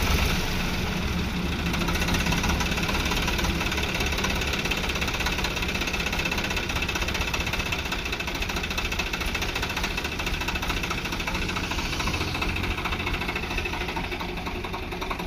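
Diesel engine of a Swaraj 744 FE 4WD tractor idling steadily, the tractor standing still.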